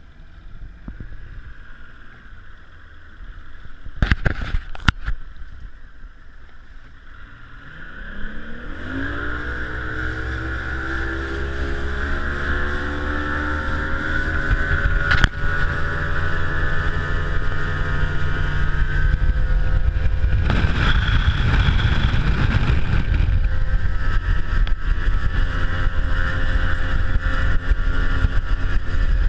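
Mercury Pro XS 250 hp outboard on a Ranger fishing boat taking off at full throttle. A few knocks come a few seconds in. Then the engine's pitch climbs steadily for about ten seconds and holds at high speed, under loud wind and water rushing.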